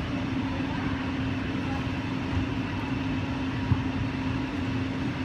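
Indoor soccer hall ambience: a steady low hum under a murmur of distant voices, with one sharp thump about three and a half seconds in as a soccer ball is kicked.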